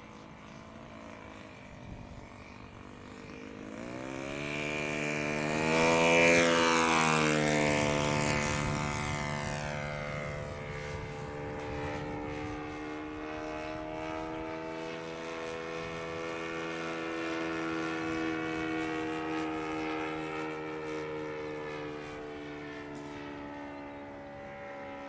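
Saito 80 single-cylinder four-stroke glow engine of a radio-controlled FW-190A model plane in flight. The engine note swells as the plane approaches, is loudest about six seconds in, where its pitch drops sharply as it passes, then settles into a steady drone that slowly fades as it flies away.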